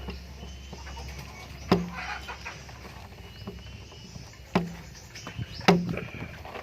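Three sharp knocks, each with a brief low ring after it, a few seconds apart, from work on a refrigerator's filter-dryer and condenser pipework.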